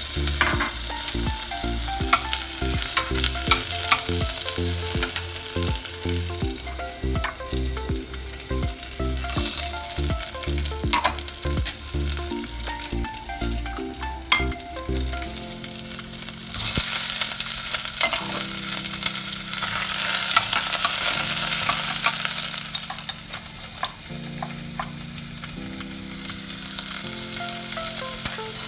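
Food sizzling in hot olive oil in a pan while a utensil stirs it, with scattered clicks and scrapes against the pan. The sizzle grows louder a little over halfway through.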